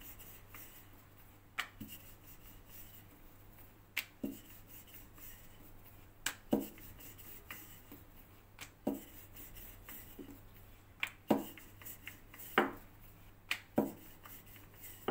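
Rolling pin working thin dough on a floured surface: irregular, sharp knocks and taps, about a dozen, as the pin meets the surface and the sheet is handled.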